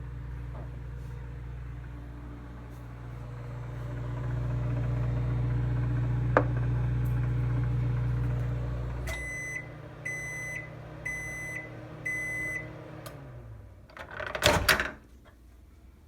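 Microwave oven running with a steady low hum until about nine seconds in, when it stops and gives four beeps about a second apart to signal the end of the cook cycle while its fan winds down. A loud clunk follows near the end.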